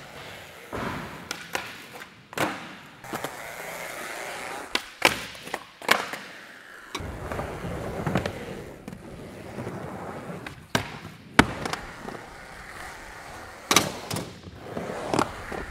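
Skateboard wheels rolling over concrete and plywood ramps, with repeated sharp clacks of the board popping and landing.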